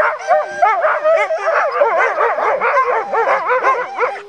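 A pack of sled dogs barking and yelping all at once: many overlapping high calls rising and falling quickly, with no pause.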